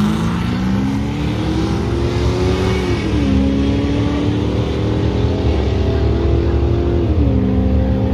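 A drag-racing vehicle's engine at full throttle down the strip, its pitch climbing steadily and dropping at two upshifts, about three seconds in and again about seven seconds in.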